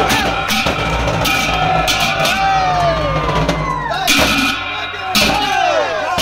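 Large double-headed drum beaten with two sticks, with men shouting and cheering over the beat.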